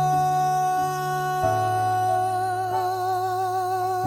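Song: a singer holds one long note with vibrato over sustained accompaniment chords, which change about a second and a half in and again near the end.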